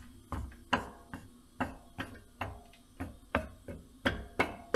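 Sharp metallic ticks at an even pace of about two to three a second, from hand-tool work on a Case IH Magnum 7250's Cummins engine while its pistons and connecting rods are being fitted.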